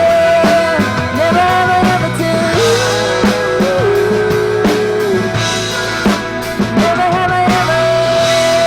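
Live country band playing the closing bars of a song, with drum kit, guitars and long held notes over a steady drum beat.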